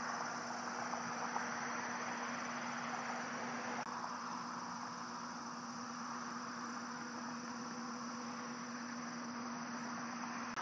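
Steady roadside background noise: an even hiss with a low, steady hum running under it.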